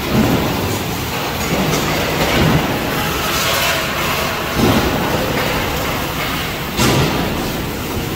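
Steady machinery din of a metal-fabrication shop floor where welding goes on, with four louder swells about two seconds apart.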